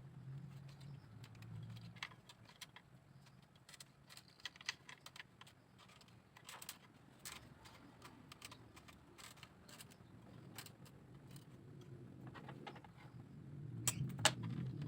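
Irregular light clicks and taps of bamboo pieces being handled, with a louder cluster of clicks near the end, over a low steady hum.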